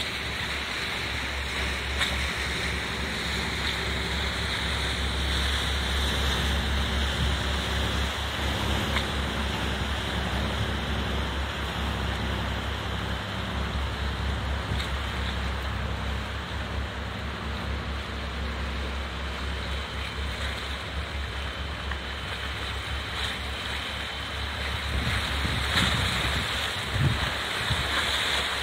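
Wind buffeting the microphone over waves washing against concrete breakwater tetrapods, with a low engine hum from a small harbour boat fading out over the first half.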